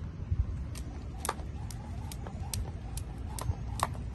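Jump rope slapping a concrete driveway at a steady skipping pace, about two sharp clicks a second.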